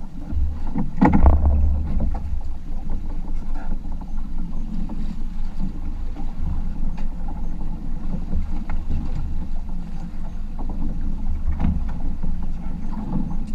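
Wind buffeting the microphone over steady sea and boat noise, a low rumble throughout, with one loud knock about a second in.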